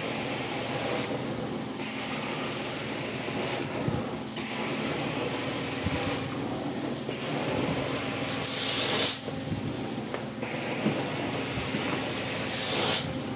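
Carpet-cleaning extractor running with its vacuum drone steady while the wand is worked over the carpet: the suction hiss swells and fades with each stroke, and the wand whistles briefly twice in the second half.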